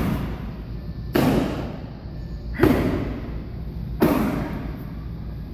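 Focus mitts smacking into a boxer's gloves and forearms as he covers up, four hard thuds about one and a half seconds apart, each trailing off with a short echo.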